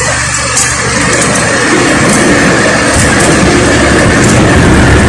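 Electric fan running close to the microphone: a steady loud whir and rush of air with a faint high whine, growing a little louder about a second and a half in.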